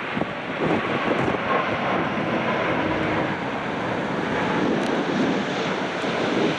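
Jet airliner on landing approach, its engine noise a steady rush mixed with strong wind buffeting the microphone.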